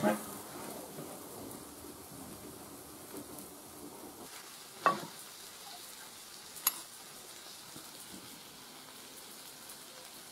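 A large metal steamer lid clanks as it is lifted off the pot, with a steady faint hiss underneath. Two more sharp clinks follow about halfway through.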